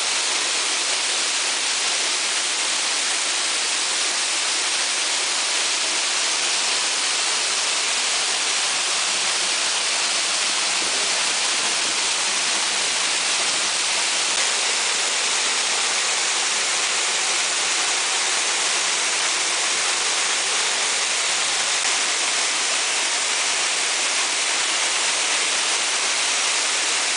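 Waterfall running: a steady, unbroken rush of falling water, heaviest in its high hiss.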